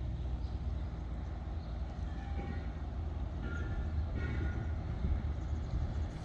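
Boat engine running with a steady low rumble as the boat comes in to dock.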